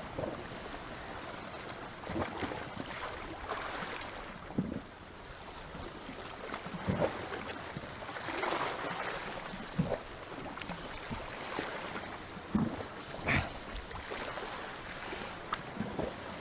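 Calm sea gently lapping and sloshing against shoreline rocks, with a few small splashes now and then.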